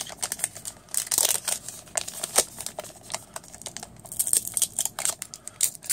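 Wrapper of a 2017 Gypsy Queen retail pack of baseball cards crinkling and tearing as it is worked open by hand, in quick irregular crackles.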